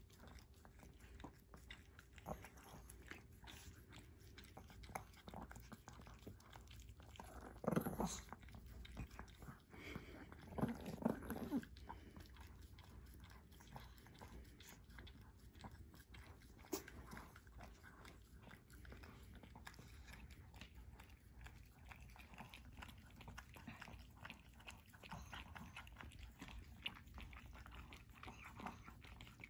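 Pomeranian puppies licking ice cream from a paper cup: faint wet lapping and smacking clicks that go on steadily. Two brief louder sounds stand out, about eight and eleven seconds in.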